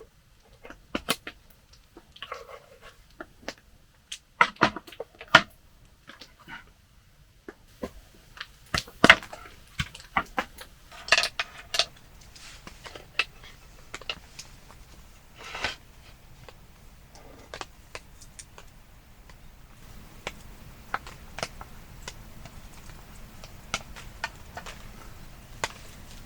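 Irregular knocks, clicks and clinks of objects being handled, with louder clusters about four to five seconds, nine seconds and eleven seconds in, and lighter ticks near the end.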